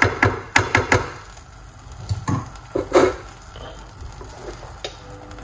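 Wooden spoon stirring cooked quinoa and knocking against the side of a stainless steel pot: a quick run of sharp knocks in the first second, then a few more between two and three seconds in.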